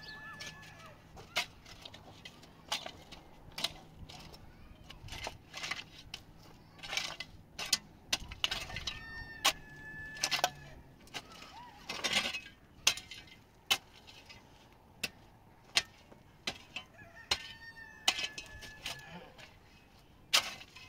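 Irregular sharp knocks, about one or two a second, with a short steady high tone about nine seconds in and again near the end.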